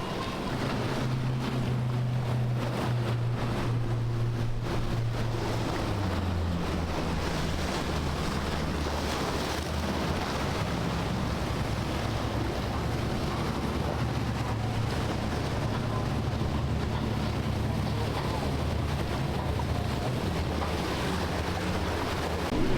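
Boat engine running steadily as a boat passes through the inlet, its pitch dropping about six seconds in, with waves washing and wind buffeting the microphone.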